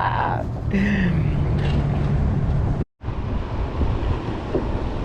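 Wind rumbling on the microphone over the sea, with a short low hum that slides down about a second in. The sound drops out for an instant just before the middle.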